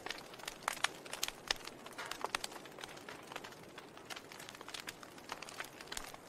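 Wood fire in a fireplace crackling: irregular sharp pops and snaps from the burning logs and embers over a soft steady hiss.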